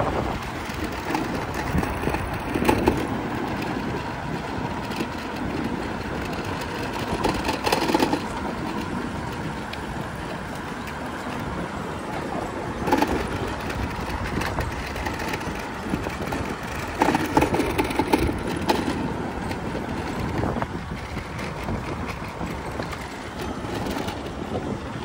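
Riding noise from a moving electric bike: wind buffeting the microphone over tyre rumble on asphalt, with a few louder bursts about 3, 8, 13 and 17 seconds in.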